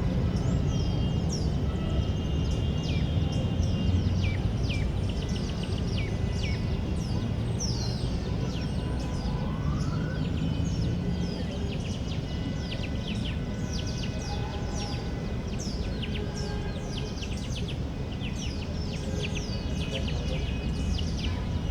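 Many small birds chirping in quick, short, downward-sweeping notes, one after another, over a steady low background rumble of park and city ambience.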